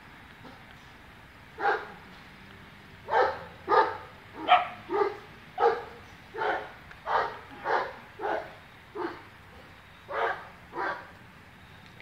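A dog barking: a single bark, then a run of about a dozen barks, each short and sharp, spaced roughly half a second to a second apart.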